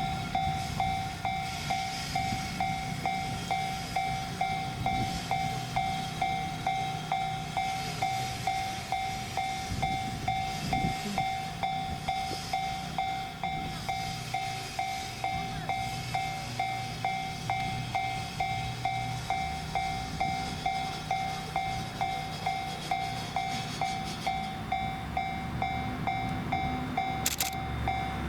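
Japanese level-crossing warning bell ringing on and on, a little under two dings a second. Beneath it runs the low rumble of a passing train, which eases off near the end.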